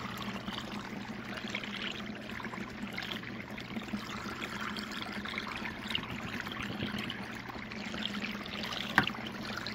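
Water running steadily down a small cleanup sluice over its matting, with a low steady hum underneath. A single sharp click comes near the end.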